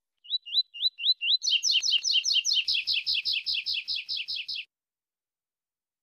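Male double-collared seedeater (coleiro) singing: a few rising slurred whistles, about three a second, then a fast run of about six quick falling notes a second that cuts off suddenly.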